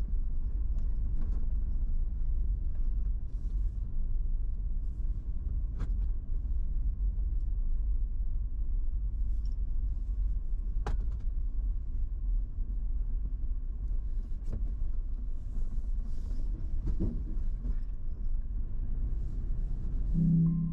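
Toyota 4Runner heard from inside the cabin, rolling slowly along a gravel road: a steady low rumble of engine and tyres, with a few sharp ticks now and then.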